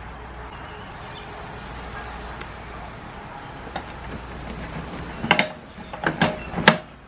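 Motorcycle seat being fitted back onto a Harley-Davidson: several sharp knocks and clunks in quick succession near the end, over steady background noise.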